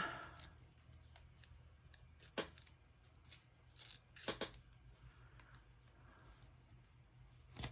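A sheet of patterned paper being torn and handled by hand: a few short, sharp rips and crackles, most of them in the middle, over a faint steady hum.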